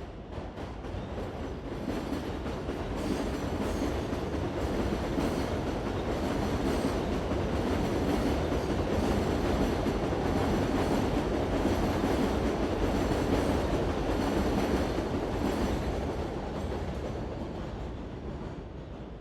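New York City subway train running on the rails, with wheel clicks. It swells over the first few seconds, stays loud and steady, then fades over the last few seconds.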